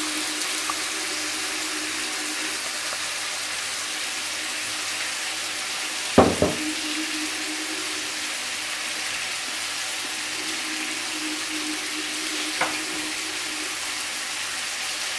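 Salmon fillets shallow-frying in vegetable oil in a grill pan over medium-low heat: a steady sizzle, with a single knock about six seconds in and a faint tick near the end.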